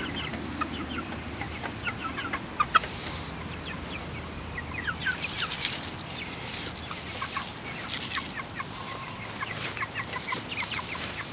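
A flock of Jersey Giant and Leghorn chickens cheeping and clucking, with many short, high calls overlapping throughout, busiest around the middle and near the end.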